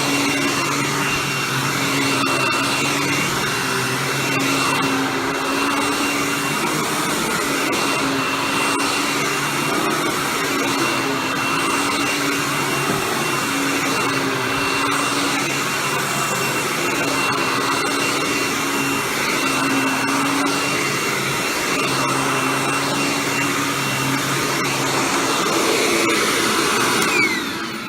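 Hoover Tempo Widepath upright vacuum with its TTI-made motor running steadily, with a steady high whine over the airflow. Near the end it is switched off and the motor winds down, its whine falling in pitch.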